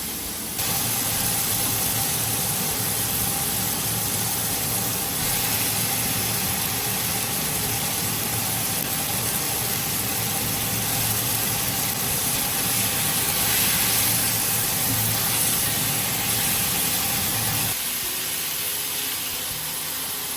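Steady hiss of food cooking on the stove over a steady low hum; the hum and part of the hiss stop about three seconds before the end, leaving a quieter hiss.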